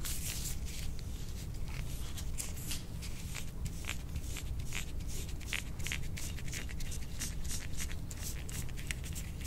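Metal soft-tissue scraper drawn again and again across the skin of a back, a quick run of short, hissy scraping strokes about two a second. It is instrument-assisted scraping meant to pull apart adhesions. A steady low hum runs underneath.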